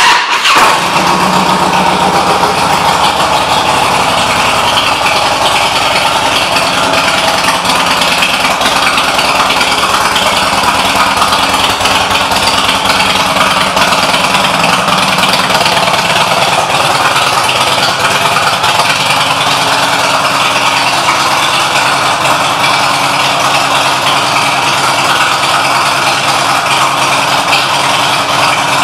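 2006 Harley-Davidson Electra Glide Classic's Twin Cam 88 V-twin firing up abruptly, then idling steadily through its Vance & Hines aftermarket exhaust.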